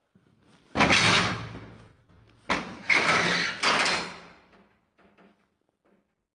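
A door banging: four loud bangs, one about a second in and three close together a couple of seconds later, each ringing out for about a second.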